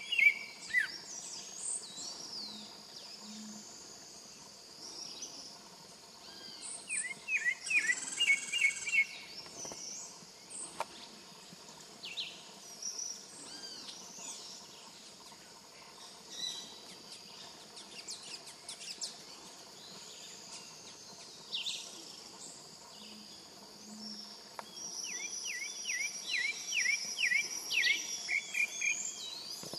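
Pale-breasted thrush singing: bursts of quick repeated whistled notes right at the start, about eight seconds in, and again near the end, with scattered short chirps between, over a steady high insect buzz.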